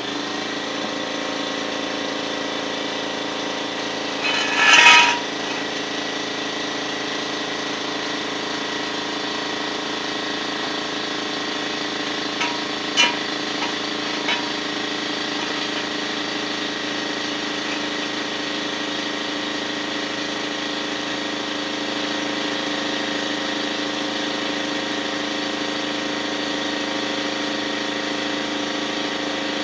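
Air-over-hydraulic floor jack's air-driven pump running steadily with a buzzing drone while it lifts the vehicle. A short, louder hissing burst comes about five seconds in, and a few light clicks come midway.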